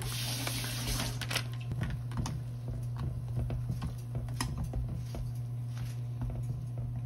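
Wooden chopsticks pushing instant ramen noodle blocks around a pan of broth: scattered light taps and wet squishes, with a brief packet rustle in the first second, over a steady low hum.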